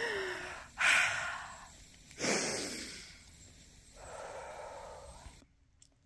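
A person breathing close to the microphone: three noisy breaths, about a second in, just after two seconds in, and a longer, softer one around four seconds in.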